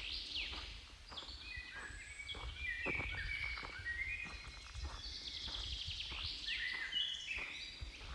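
Several birds singing, with overlapping rapid trills and short chirps, over a low rumble.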